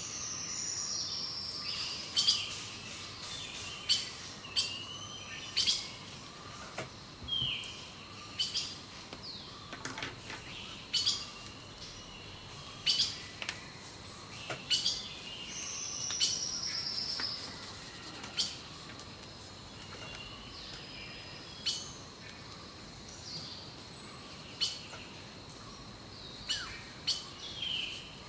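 Birds singing and chirping, with many short calls. One bird repeats a buzzy falling phrase at the start, about halfway through and again at the end.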